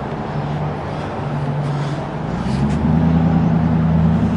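Road traffic with a motor vehicle's engine running close by; its hum steps up in pitch and gets louder about two seconds in, as the vehicle pulls away or accelerates.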